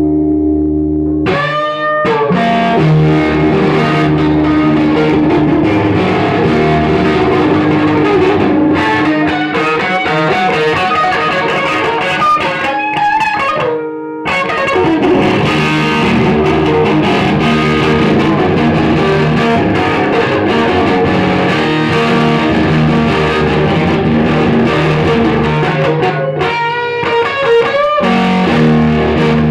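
Background music led by guitar, including electric guitar. It comes in about a second in over a held drone and briefly drops out near the middle.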